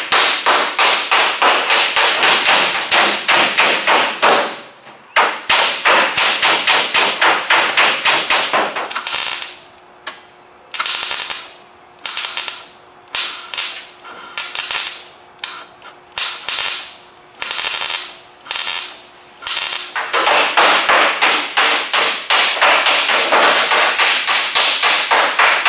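Fast, even hammer-on-dolly tapping on thin automotive sheet steel, then a string of short crackling MIG welding bursts about a second long each, then rapid hammer-and-dolly tapping again. This is hammer welding: hot plug welds in a quarter panel are hammered against a dolly so the metal doesn't shrink.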